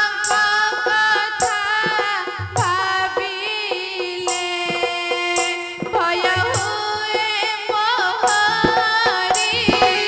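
A female voice singing an ornamented, wavering melody in Odia Ramanatak folk-theatre style into a stage microphone. She is accompanied by sustained instrumental tones and regular hand-drum strokes.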